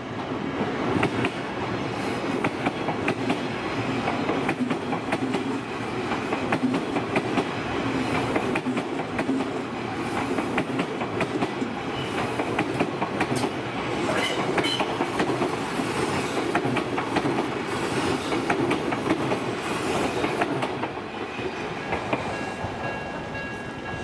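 An Odakyu Line stainless-steel electric commuter train passing over a level crossing, its wheels clattering over the rail joints in a dense run of clicks. The level-crossing warning bell rings with it, and the train noise eases off about three seconds before the end.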